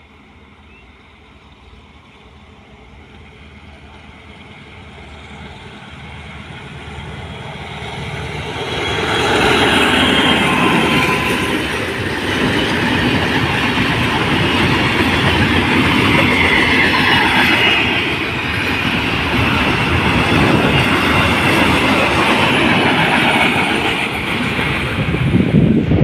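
Diesel-hauled container freight train approaching and passing. The locomotive grows steadily louder over the first nine seconds or so. Then comes a steady loud rumble and clatter of the flat wagons' wheels on the rails, swelling again near the end as the rear locomotive goes by.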